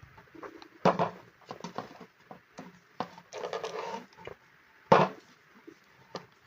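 Handling noises from a corded drill being turned over in the hands: scattered clicks and knocks, a sharp knock about a second in and another about five seconds in, with a short scraping rustle in between. The drill's motor is not running.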